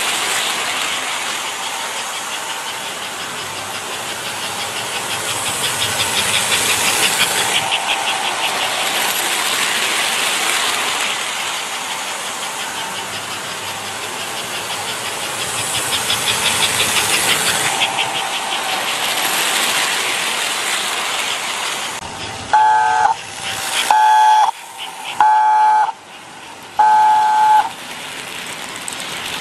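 American Flyer S-gauge model train with a circa-1958 smoking locomotive running on its track: a steady hiss and a rapid rhythmic clatter that swells twice as the train passes close. Near the end the locomotive's whistle blows four short blasts.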